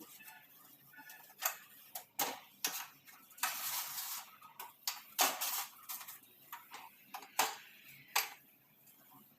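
A trigger spray bottle squirting a cleaning solution in several short hissing sprays, with a longer hiss of a cloth wiping a stove top about three and a half seconds in.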